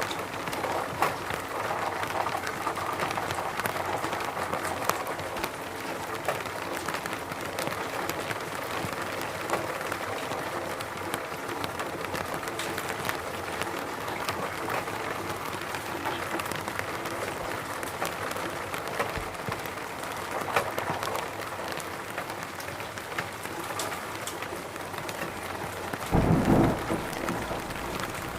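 Steady rain falling, with a dense patter of individual drops. A brief low rumble, likely distant thunder, swells up near the end.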